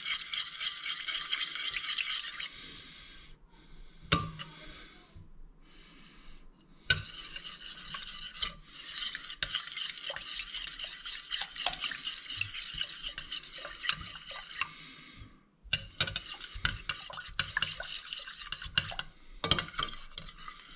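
Metal spoon stirring and scraping around the inside walls of a stainless steel pot of warm gelatine syrup, working the gelatine off the sides. The scraping comes in three long stretches with quieter pauses between, and there is a sharp tap about four seconds in.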